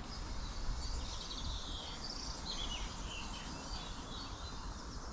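Steady low background noise with small birds chirping faintly, most of it in the first few seconds.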